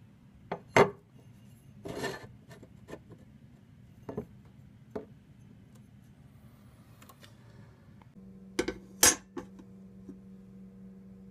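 Aluminium adapter plate and metal swivel parts clinking and knocking as they are handled and set against the surface cleaner's plastic cover, with a few sharp clinks, the loudest a little under a second in and again about nine seconds in. A steady low hum starts about eight seconds in.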